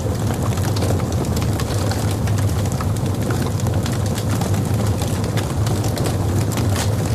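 Wood fire in a fireplace burning, a steady low rumble of flames with many small, sharp crackles and pops scattered through it.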